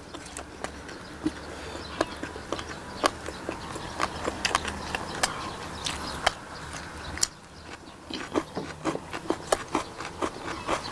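People chewing braised pigs' feet (jokbal), with many sharp, irregular clicks and smacks from mouths and chopsticks on the dishes.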